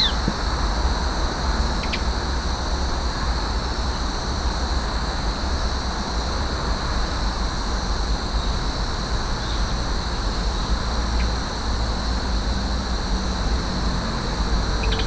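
Steady outdoor ambience: a low rumble like distant traffic or wind, a constant high hiss, and a few brief high chirps scattered through it.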